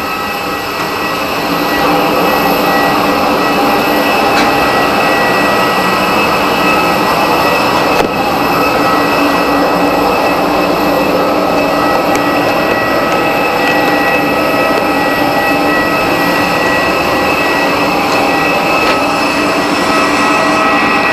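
Steady loud rush of a parked airliner's turbine, with a high steady whine over it. It grows louder over the first two seconds, then holds level.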